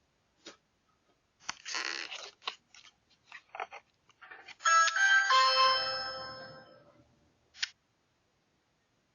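Electronic doorbell chime: a short run of bell-like notes that rings out and fades over about two seconds. Scattered clicks and a brief rustle come before it, and one more click after.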